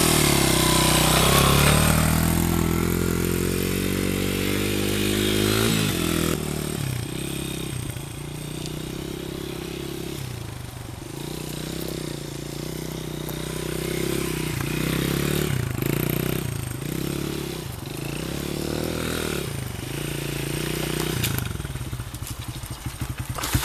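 Honda CRF100F dirt bike's single-cylinder four-stroke engine pulling away hard, its pitch climbing for several seconds. It then rises and falls over and over, fainter, as the bike rides around at a distance, and grows louder again as it comes back near the end.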